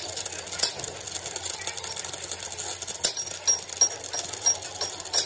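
Stick-welding arc crackling and hissing steadily as an electrode lays a weld bead along the edge of a steel excavator bucket. From about three seconds in, a short high tick repeats about three times a second.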